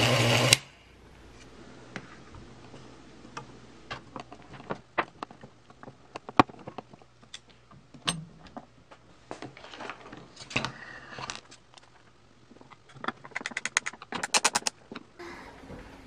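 Induction motor driving a burr coffee grinder runs with a steady hum, then is switched off about half a second in and stops abruptly. After that come scattered light clicks and taps of hand tools on metal and wood, with a quick run of rapid clicks near the end.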